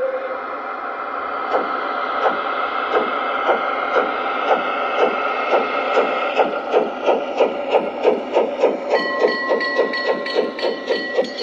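G-scale garden-railway steam locomotive's sound unit chuffing as the train pulls away. There is a steam hiss at first; the chuffs begin about a second and a half in and quicken from under two a second to about three a second. A steady whistle-like tone joins about nine seconds in.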